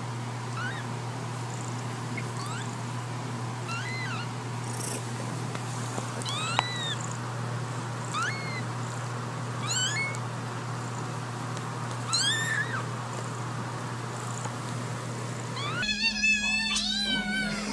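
A newborn kitten with its eyes still closed gives thin, high-pitched mews, short and rising then falling, about one every second or two, over a steady low hum. Near the end several kittens meow loudly over one another, begging for food held above them.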